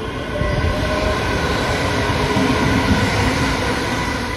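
Electric multiple unit train running past on the tracks: steady rumble and hiss with a few steady whining tones, getting louder about a second in.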